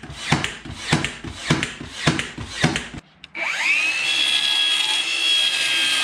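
Five or six evenly spaced strokes, about one every half second, from a tool worked along the floor at the base of a cabinet. After a brief break, a cordless power tool whines up to speed and runs steadily at a high pitch.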